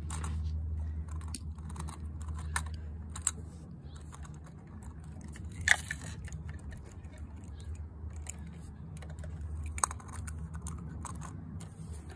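Scattered plastic clicks and taps from hands working the side-loader arm and little carts of a First Gear die-cast toy garbage truck, with a sharper click about six seconds in and another near ten seconds, over a steady low hum.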